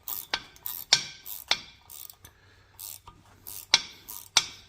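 Ratchet wrench clicking in uneven strokes, about a dozen sharp metallic clicks with a short ring, as a nut is worked off a milling machine knee's lead screw.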